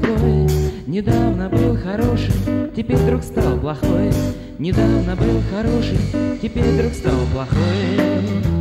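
Rock band playing: guitars, bass and drums, with a lead line that bends up and down in pitch over a steady drum beat, from a 1984 reel-to-reel tape recording.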